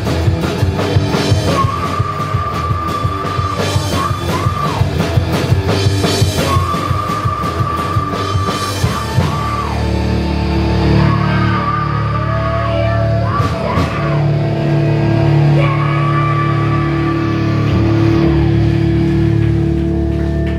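Live rock band playing loudly, with drums, electric guitar and bass guitar. About halfway through, the drums drop out and long held notes ring on.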